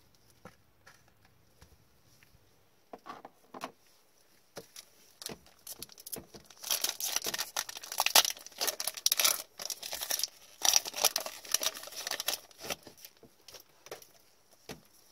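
Upper Deck hockey card pack wrapper torn open and crinkled by gloved hands, making a dense crackling stretch in the middle, with a few small clicks and rustles before and after.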